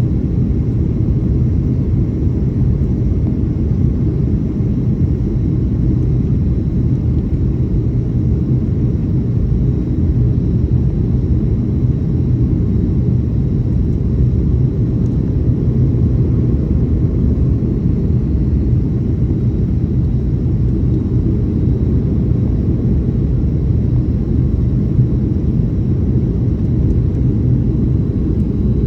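Steady low rumble inside the cabin of a Boeing 737 airliner: engine and airflow noise heard from a passenger seat, holding even throughout.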